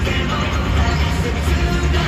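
A batter's walk-up song with singing, playing loudly over a domed baseball stadium's public-address system and heard from the stands.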